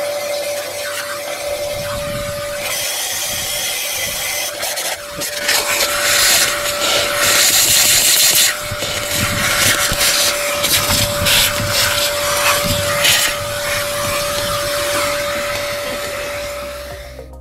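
Vacuum cleaner running with a steady whine as its hose nozzle sucks debris out of the cylinder bores and off the deck of a Toyota 1KZ-TE diesel block. The suction rush grows louder and hissier from about six to eight and a half seconds in, and the sound fades just before the end.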